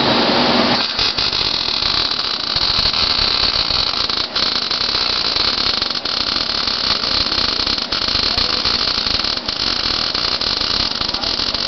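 MIG/MAG welding arc crackling steadily as a bead is run along a flat plate, starting about a second in.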